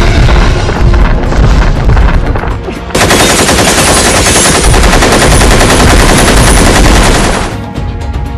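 A long, continuous burst of rapid machine-gun fire, starting about three seconds in and lasting about four and a half seconds before cutting off. A heavy low rumble comes before it.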